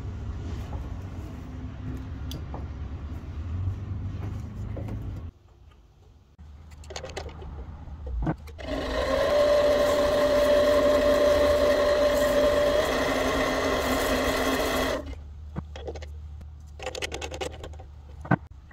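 Small benchtop lathe running with a steady whine for several seconds while steel wool is held against a coin ring spinning in its chuck. Before it there is a low hum, and after it come a few brief bursts and a sharp click.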